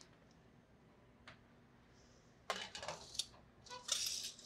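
Foil-lined metal baking sheet clattering onto a wire oven rack about two and a half seconds in, then a short scrape as it slides into the oven near the end.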